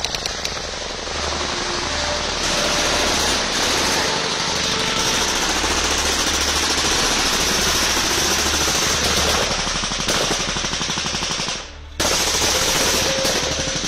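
Sustained machine-gun fire: long strings of rapid shots running almost without a break, with a short pause about twelve seconds in before the firing resumes.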